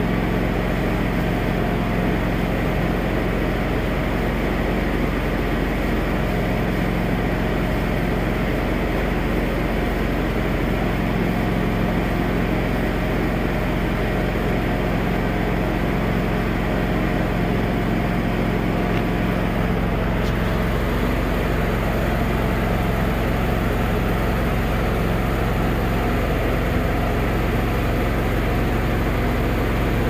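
An engine running steadily, with a constant low hum and no change in speed.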